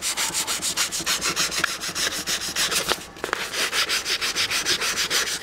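400-grit sandpaper rubbed by hand along a wooden pool cue shaft in quick back-and-forth strokes, several a second, with a brief break about three seconds in. The shaft's high side is being sanded down to sit flush with the ferrule.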